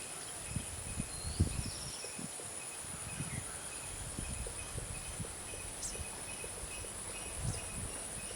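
Outdoor ambience: a steady high-pitched insect drone, like crickets, with a few short bird chirps and a brief trilled call about a second in, over low rumbles of wind on the microphone.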